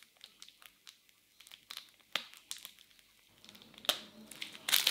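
Plastic piping bag crinkling as it is squeezed to pipe chocolate cream. It starts as scattered small crackles, then grows denser and louder toward the end.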